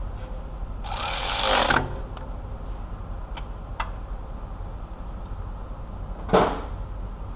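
A small power tool runs for about a second, tightening a nut on the newly fitted starter, with a couple of light clicks afterwards and a second short burst near the end.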